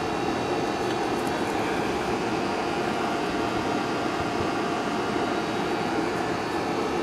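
Steady mechanical drone with faint, even whining tones over it, holding at a constant level throughout.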